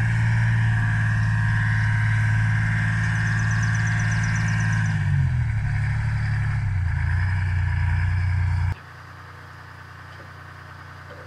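AVGP Cougar armoured vehicle's Detroit Diesel 6V53T engine running, its pitch falling about five to seven seconds in. About nine seconds in the sound drops abruptly to a much quieter, steady engine hum.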